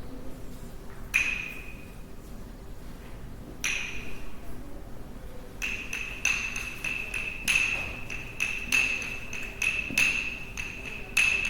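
Sticks striking a resonant object, each strike ringing with a high ping that fades. Two single strikes come a couple of seconds apart, then from about halfway a quicker run of strikes keeps the ring going.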